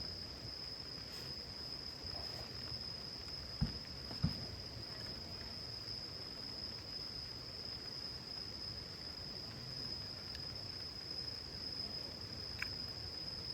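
Steady high-pitched insect trill, one unbroken tone, with two short low knocks about half a second apart a quarter of the way in.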